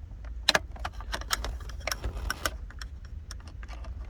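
Irregular small clicks and light metallic rattles of a metal angle pick working the locking tab on the plastic wiring plug of a climate control unit, over a steady low hum.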